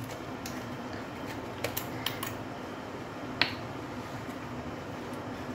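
A few small clicks and taps of objects being handled, with one sharper click about three and a half seconds in, over a steady low background hum.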